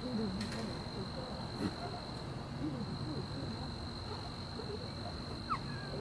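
Night insects chirring at one steady high pitch, with faint low wavering sounds and a few soft clicks beneath.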